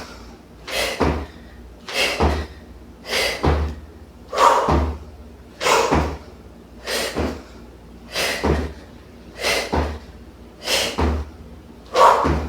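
Jump squats: feet landing on the floor with a thud about ten times, in an even rhythm of roughly one landing every 1.2 seconds.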